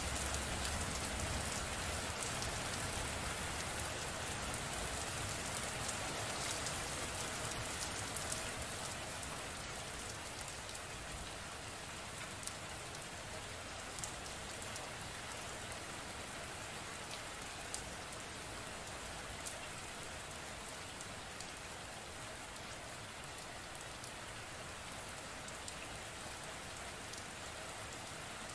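Steady rain falling, with scattered single drops ticking sharply close by; the downpour eases a little over the first dozen seconds, then holds steady.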